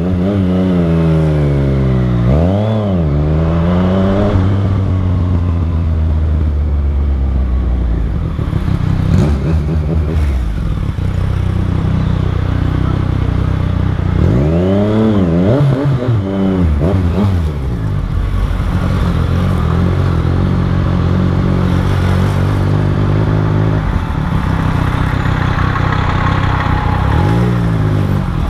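Motorcycle engine running at low speed in traffic. It is revved up and back down about two seconds in, again around fifteen seconds in, and briefly near the end, with steady running in between.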